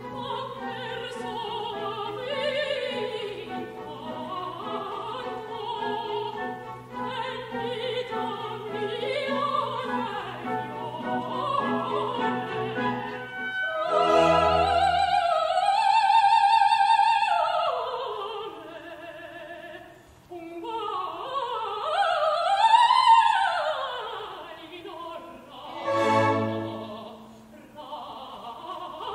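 A mezzo-soprano sings an operatic aria with orchestra. Low accompaniment notes are held under the first half. Past the middle her voice climbs and falls in quick runs, and a full orchestral chord sounds near the end.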